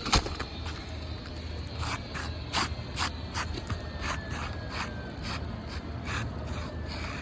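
Old, brittle asphalt roof shingle being scraped and pried loose: a sharp click near the start, then a run of short scraping strokes, two or three a second, as the shingle is worked out from the ones around it.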